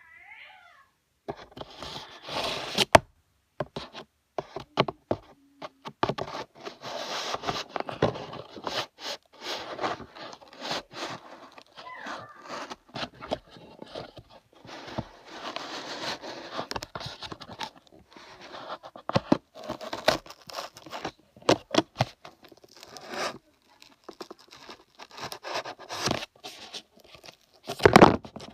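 Laptop packaging being handled: irregular rustling, scraping and tearing, broken by sharp clicks and knocks, starting about a second in.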